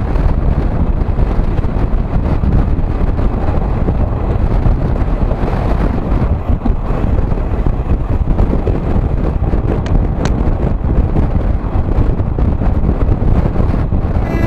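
Steady rush of wind on the microphone over the low rumble of a moving passenger train.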